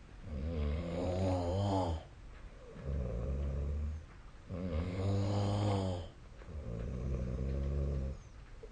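A sleeping person snoring heavily and rhythmically. Long, rasping snores come about every four seconds, with a lower, duller snore between each pair.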